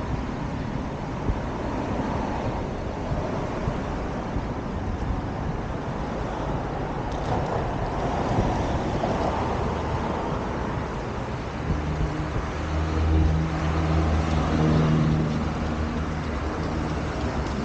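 Street traffic: a steady wash of vehicles running and passing. A nearby engine's low drone grows louder about twelve seconds in.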